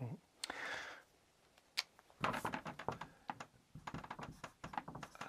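A dry-erase marker drawing on a whiteboard, heard as a quick run of short scratchy strokes and taps from about two seconds in. A few single clicks come before it.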